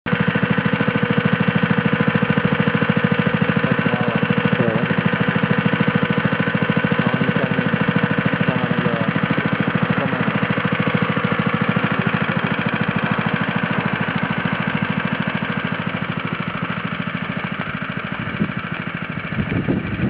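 Masterpac PC5021 vibratory plate compactor running steadily, its engine giving a fast, even pulsing; it grows a little quieter near the end.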